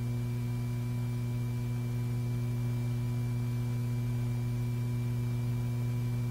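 Steady electrical hum: a low, unchanging drone with fainter higher tones above it, and no mechanical sounds.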